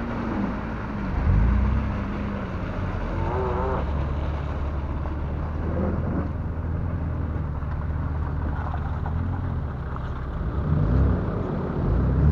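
Toyota Land Cruiser 80 driving slowly off-road through mud, its engine a steady low drone with the revs swelling and easing now and then.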